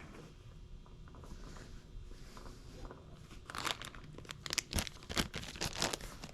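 Hands rummaging and handling parts, a quiet rustle and then a quick run of crinkling, crackly clicks about halfway through.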